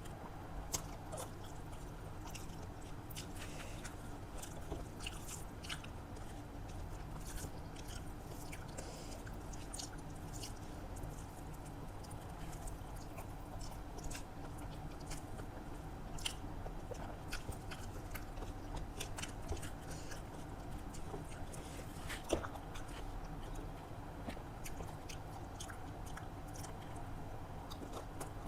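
Close-up eating sounds: chewing and biting, with scattered short crunches and mouth clicks over a steady low hum.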